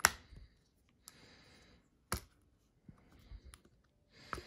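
Small metal screen clamps being unscrewed and lifted off a watch on a silicone mat, making sharp clicks: one right at the start, another about two seconds in, with fainter handling ticks and soft rubbing between.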